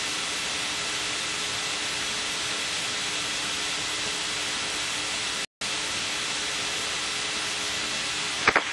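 Steady static hiss on an open radio voice loop, with a faint low hum under it; the feed cuts out completely for a moment about five and a half seconds in.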